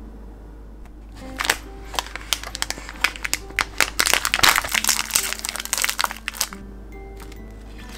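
Foil wrapper of a sleeve of Oreo cookies crinkling as it is opened by hand: quick irregular crackles that start about a second in and stop about a second and a half before the end.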